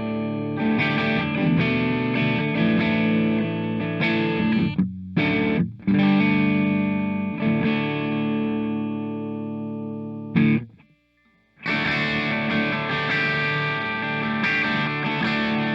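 Squier '70s Classic Vibe Starcaster semi-hollow electric guitar played with overdrive: sustained distorted chords with a couple of brief breaks, a full stop of under a second about eleven seconds in, then the playing picks up again.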